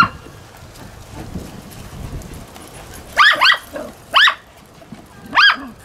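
A dog barking: two quick barks about three seconds in, another a second later, and one more near the end.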